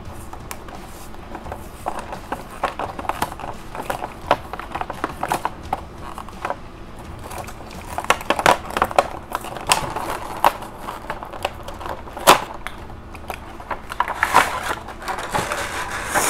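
Hot Wheels 5-pack packaging being torn open by hand: cardboard ripping and the plastic blister crackling and crinkling in a run of small clicks, getting busier and louder about halfway through.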